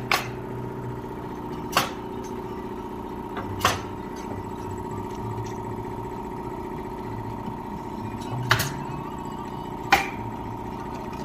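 Pneumatic nail gun driving nails into wood framing: about five sharp single shots spaced irregularly, one to five seconds apart, over a steady machine hum.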